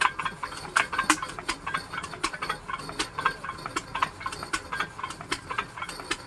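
12 hp single-cylinder stationary diesel engine being hand-cranked to start: quick metallic clicking and clatter, about three a second, as the starting handle turns the flywheels.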